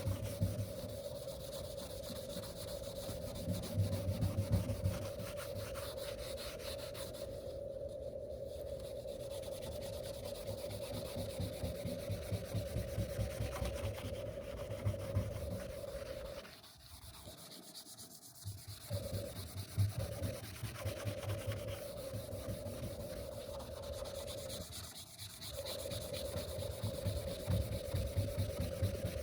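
Scotch-Brite pad scrubbed by hand against an oxidized aluminum drift-boat hull wet with Simple Green: a steady rubbing rasp with a steady hum-like tone running under it. The scrubbing stops briefly about two-thirds of the way through, and again a few seconds later.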